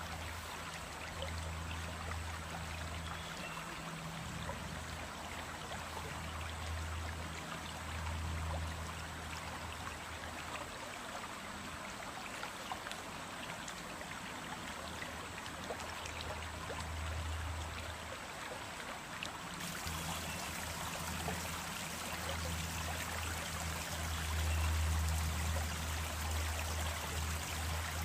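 Small stream running steadily over stones, a continuous burbling rush of water, with a low rumble that comes and goes underneath.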